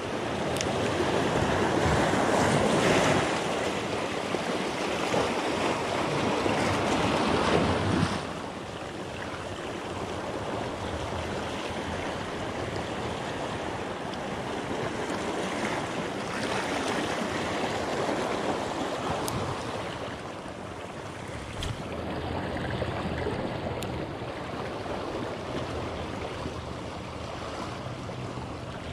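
Small waves washing and lapping over shallow reef rocks at the water's edge, with wind on the microphone. The sound is louder for the first eight seconds or so, then drops suddenly to a steadier, softer wash.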